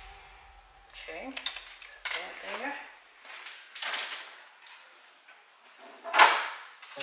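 A cooking utensil clinking and scraping in a pot as food is stirred: a few clicks, then three scraping strokes, the last near the end the loudest.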